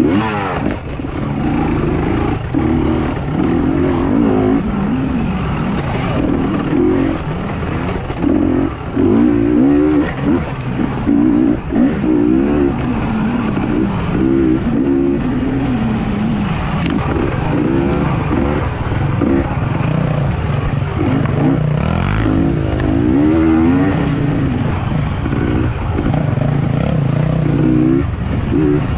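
Motocross bike engines revving up and down as they race, their pitch rising and falling again and again, with short throttle blips between longer pulls.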